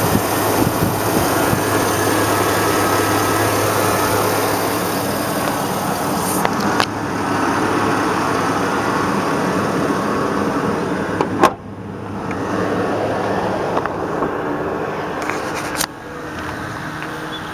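The 5.3-litre V8 of a 2002 Chevy Avalanche running steadily with a constant low hum. There is a sharp click about eleven and a half seconds in, after which the sound is clearly quieter, with further clicks before and after it.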